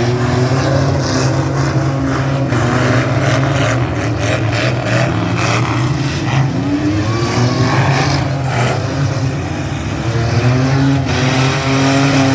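Engines of several demolition derby trucks and SUVs running and revving, their pitch rising a few times as they accelerate, with scattered bangs.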